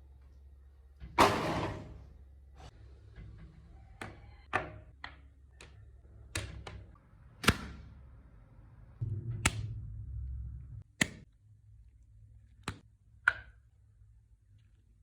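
A series of sharp knocks and clacks, about ten in all, from hard objects being handled and set down on a hard surface, with a heavier, rougher clatter about a second in and a stretch of scraping noise about nine seconds in.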